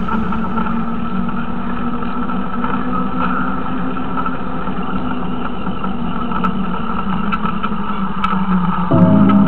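Steady motor hum and rolling noise from a small vehicle riding along a paved path. Music comes in near the end.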